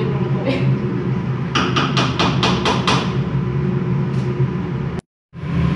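A quick, even run of about eight sharp knocks, a wooden spatula striking the side of a stainless steel cooking pot while stirring thick rice, over a steady hum. The sound drops out for a moment near the end.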